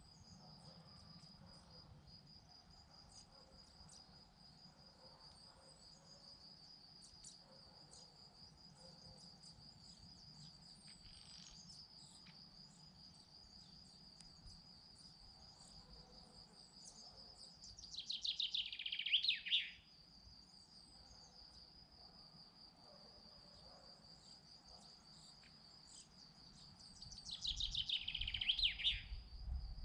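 An insect trills steadily at one high pitch throughout. Twice, a songbird sings a fast phrase of about two seconds that tumbles down in pitch: once about two-thirds of the way through and again near the end. A low rumble sits under the second phrase.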